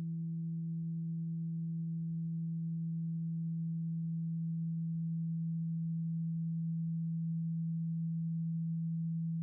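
A steady, low sustained meditation tone with fainter higher overtones, held evenly without fading.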